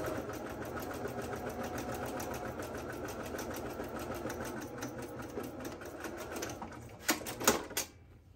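Domestic sewing machine stitching a side seam at a rapid, steady pace, then stopping. Two sharp clicks come near the end.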